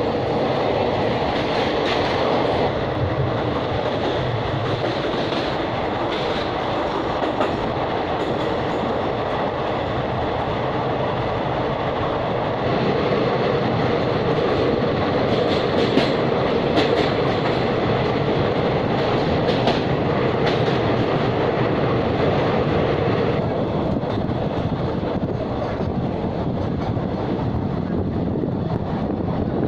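Passenger train running at speed, heard from the open window of a coach: a steady rush of wheel and rail noise with wind, and a clickety-clack of wheels over rail joints. It gets louder for about ten seconds in the middle while the train passes through a tunnel.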